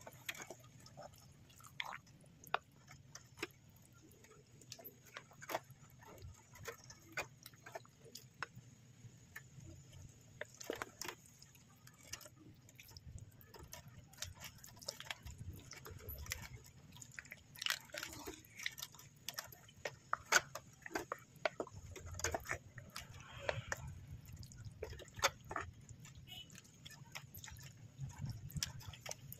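Spaghetti simmering in a pan of sauce and liquid: faint, irregular small pops and clicks of bubbling over a low steady hum.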